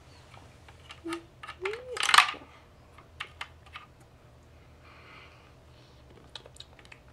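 Small plastic toy pieces clicking and tapping as they are handled in a plastic playset, with a louder brief rattle a little after two seconds in.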